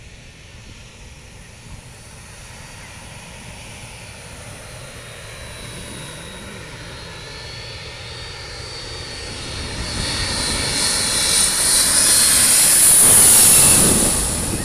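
Twin-engine jet airliner on landing approach, flying in low and passing overhead. Its engine noise builds steadily to a loud peak about thirteen seconds in, with a high whine riding on the rush, then starts to fall away.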